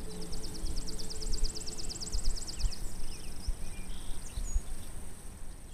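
A songbird sings one rapid, even trill of about two and a half seconds, followed by a few short chirps and whistles. Wind buffets the microphone with a gusty low rumble underneath.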